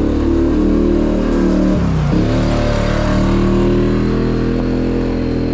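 Polaris Sportsman 850 ATV engine running at steady revs, which dip briefly about two seconds in and climb back.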